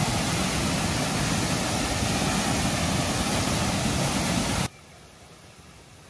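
Waterfall pouring into its plunge pool: a loud, steady rush of water. About three-quarters of the way through it cuts off suddenly to a much fainter rush.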